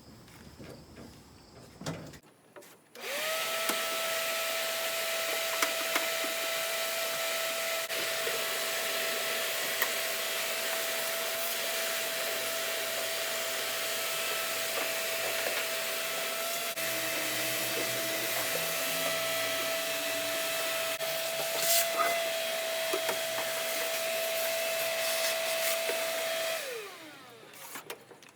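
A vacuum cleaner running with a steady whine, switched on about three seconds in and spinning down with a falling pitch when switched off near the end. A few short clicks and knocks ride on top of it.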